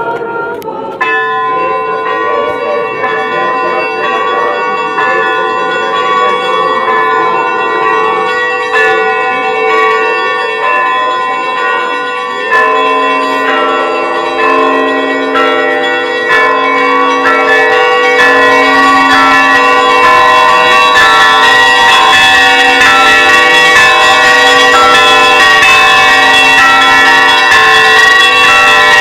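Russian Orthodox church bells ringing for Easter: several bells of different pitches sound together, starting suddenly about a second in. A lower bell joins with repeated strokes partway through, and the ringing grows louder and fuller in the second half.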